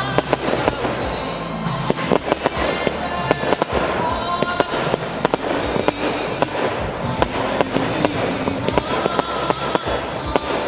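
Fireworks going off in a dense, continuous run of bangs and crackles, with music playing underneath.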